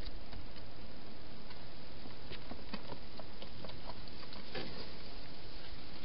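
A European hedgehog eating from a bowl inside a plastic feeding box: irregular small clicks and patter of chewing and snuffling, with a denser run of clicks about four and a half seconds in, over a steady hiss.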